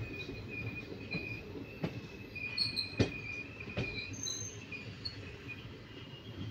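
Passenger train coaches rolling slowly into a station: a low rumble with thin, high metallic squealing from the wheels as the train slows on arrival. Three sharp clacks come about a second apart midway, the middle one the loudest.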